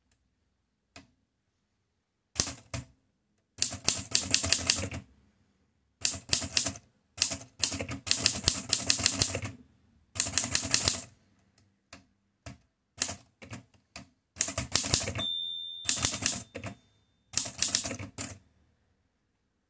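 Erika 5 Tab portable typewriter being typed on in word-length bursts of rapid key strikes, with short pauses between them. Its margin bell rings once about three-quarters of the way through.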